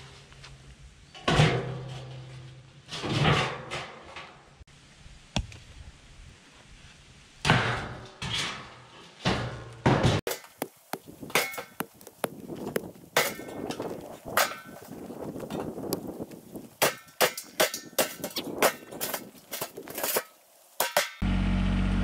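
A steel barrel being set back over a burning stump with a few heavy hollow knocks, then a hatchet chopping repeatedly into the charred stump, about one to two strikes a second. Near the end a steady engine starts running.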